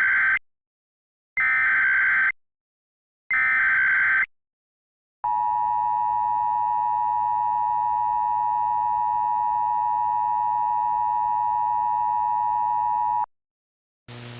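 Emergency Alert System SAME header: three one-second bursts of screeching data tones about two seconds apart, the first already under way. Then comes the EAS two-tone attention signal, held steady for about eight seconds before it cuts off. This is the lead-in to an Emergency Action Notification. A low hum comes in near the end.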